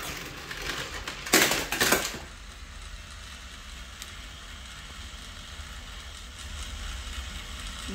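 A short clatter of hard plastic toy trains about a second and a half in, lasting under a second, then a low steady hum.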